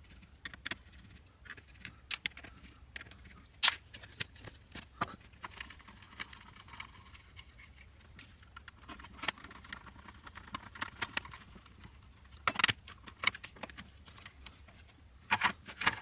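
Scattered light clicks and taps of hands, tools and parts being handled on a workbench, with a louder cluster of knocks about twelve seconds in and again near the end.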